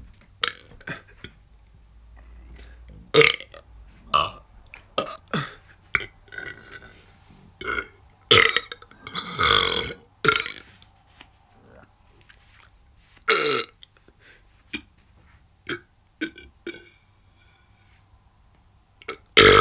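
A person burping over and over: a string of short belches with quiet gaps, and a few longer, drawn-out belches that fall in pitch.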